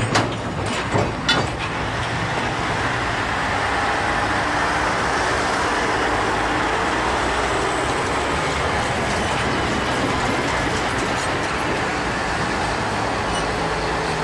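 Heavy military trucks in a convoy driving past, a steady mix of engine and tyre noise, with a few sharp knocks in the first second and a half.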